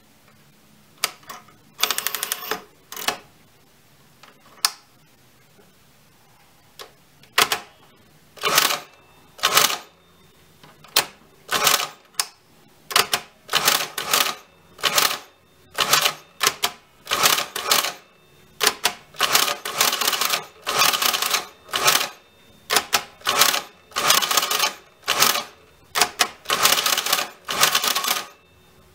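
Hamann Automat V electro-mechanical calculator working through a division by hand as repeated subtraction: short bursts of motor whirr and gear clatter, one per turn of the mechanism, with single clicks between them. The bursts are scattered at first and come in quick succession from about halfway through.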